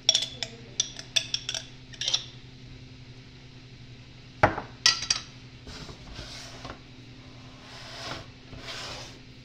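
Metal spoon clinking sharply several times against a dish, then a single loud knock followed by a few more clinks. Softer scraping follows as the spoon spreads a creamy topping over pizza dough.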